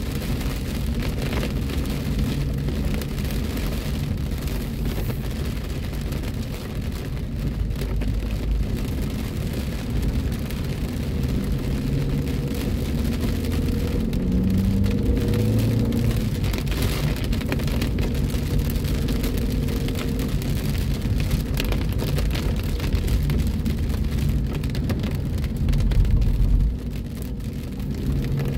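Heavy rain drumming on a moving car's roof and windshield, heard from inside the cabin over a steady low rumble of engine and tyres on the wet road. The low rumble swells louder for about a second near the end.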